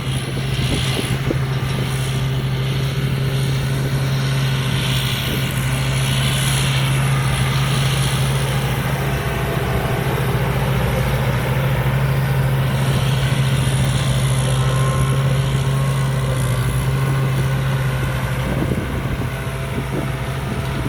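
Combine harvester's 260-horsepower engine running steadily, a constant low drone that holds an even pitch.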